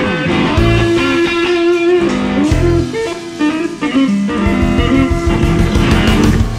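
Stratocaster-style electric guitar playing single-note melody lines over low bass notes, with a brief dip in loudness about three seconds in.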